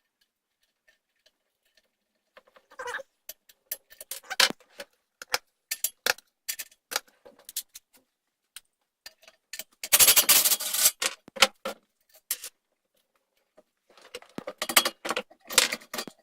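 Hand tools clicking and clinking on metal parts while the rear wheel of a Doodlebug minibike is being taken off: scattered sharp clicks, a dense run of rapid clicking about ten seconds in, and more clicking near the end.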